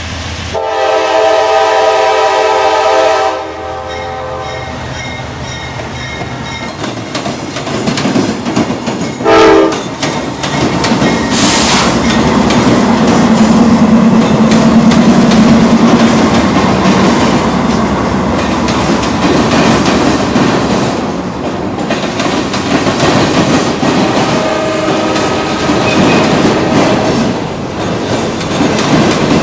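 Norfolk Southern freight train's diesel locomotive horn sounding one long chord blast as the train approaches, then a short toot about nine seconds in. The locomotive's engine passes close with a loud rumble, followed by freight cars rolling by, their wheels clacking over the rail joints.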